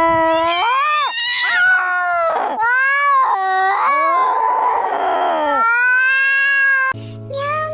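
A cat meowing and yowling in a run of six or seven long, drawn-out calls, one after another, their pitch bending up and down. Music comes back in near the end.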